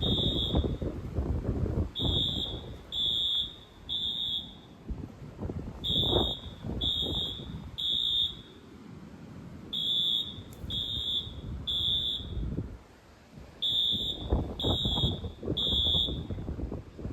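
Fire alarm sounding the temporal-three evacuation pattern: three high beeps about a second apart, then a pause, repeating every four seconds.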